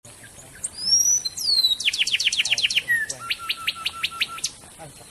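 Songbird song from a masteran training recording: a few high whistled glides, then a fast run of about ten sharp downward-sweeping notes, then a slower series of about seven notes over a held lower tone, ending on one sharp high note near the end.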